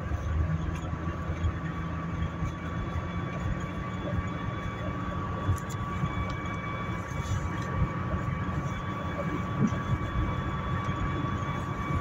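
Inside a moving 2008 Dodge Caliber: steady road rumble with a high-pitched whine holding one pitch, and a fainter, higher tone joining about halfway through. The whine is tied to road speed, appearing around 50–60 mph and fading when slowing, and the owner suspects a wheel bearing going out.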